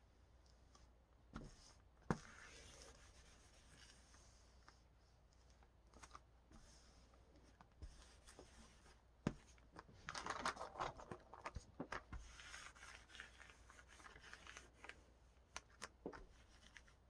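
Faint handling noises: a few sharp taps and knocks, and a stretch of rustling and rubbing about ten seconds in.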